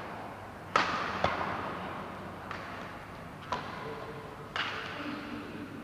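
Badminton rackets striking a shuttlecock in a rally: four sharp cracks spaced roughly a second apart, plus one fainter hit, each ringing briefly in the echoing hall.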